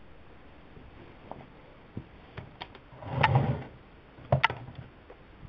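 A few light clicks, a short muffled rustle about three seconds in, then a sharp double click about a second later: switch clicks and handling noise.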